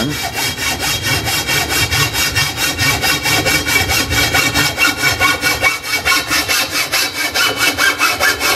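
Hand hacksaw cutting through an aluminum pool pole clamped in a vise: fast, even back-and-forth rasping strokes of the blade through the metal tube.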